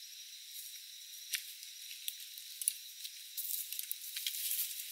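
Footsteps crunching and rustling through tall grass and leaf litter, in scattered crackles that thicken into denser rustling over the last second and a half. A faint steady high whine runs underneath.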